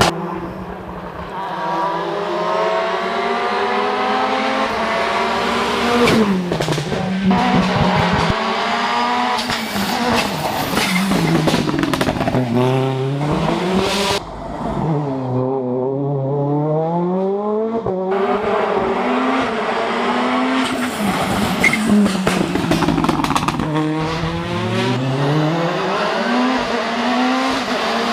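Toyota Yaris WRC rally car's 1.6-litre turbocharged four-cylinder engine at full race pace, its pitch rising and falling many times as the car accelerates, changes gear and brakes through the stage. The sound thins out briefly about halfway through, then builds again.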